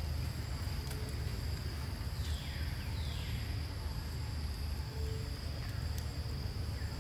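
Forest ambience: a steady high insect drone over a low rumble, with two quick falling calls about two and a half seconds in.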